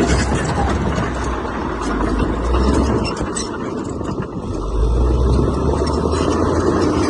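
Heavy earthmoving machinery's diesel engine running under load, with a deep low rumble. The rumble eases about three seconds in, then builds again a second and a half later.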